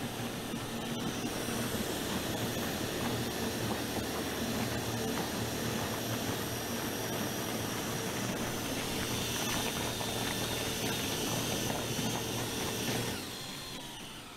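Cordless DeWalt drill motor driving a small boat's propeller at speed: a steady electric whine over the hiss of churning water. It falls off sharply about a second before the end.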